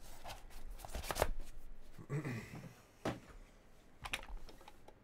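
Trading cards and their packaging handled by hand: a cardboard box and a plastic card case give sharp clicks and rustles, thickest in the first second and a half, then a few scattered clicks.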